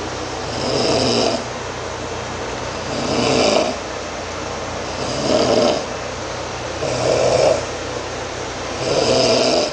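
A man snoring, five snores about two seconds apart, each lasting just under a second. A steady low hum runs underneath.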